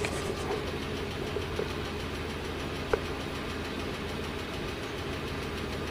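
UAZ Patriot's ZMZ-409 four-cylinder petrol engine idling warm, with a clicking from the valvetrain that appears only once the engine is hot: the owner takes it most likely for failed hydraulic lifters.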